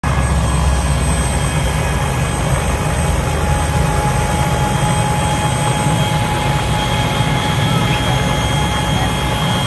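Small two-bladed helicopter running on the ground with its rotor turning: a steady low rotor rumble with a thin, steady whine above it.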